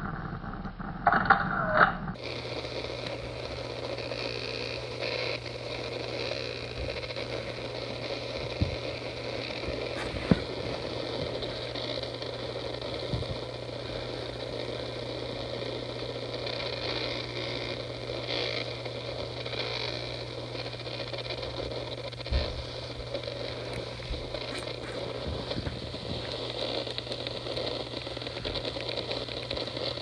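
iPhone 4s system sounds played through a portable speaker, distorted and crackly. A crackling burst of the camera capture (shutter) sound comes about a second in, followed by scattered faint clicks over a steady hum and hiss. The distortion comes from a fault in the audio IC chip on the logic board, which the owner assumes is a bad solder joint.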